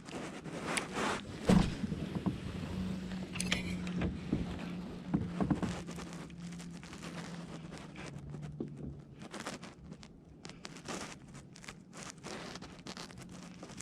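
Knocks and clicks of fishing gear being handled on a kayak, the loudest a sharp knock about a second and a half in, with a run of short clicks later on, over a faint steady low hum.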